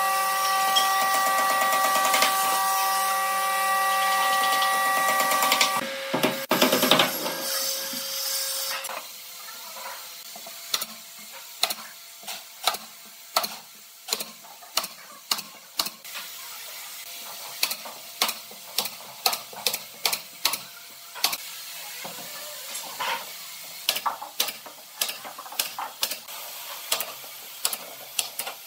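A power tool's motor runs steadily with a whine of several held tones, then stops about six seconds in. After a short noisy stretch comes a long run of sharp knocks and taps on wood, roughly one or two a second and unevenly spaced.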